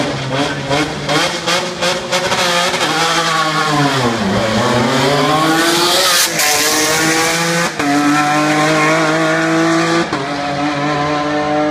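Rally car launching from the start line. Its engine is held at high revs with a rapid string of sharp bangs, the revs dip and then climb as it pulls away, and it accelerates hard past with upshifts about six, eight and ten seconds in.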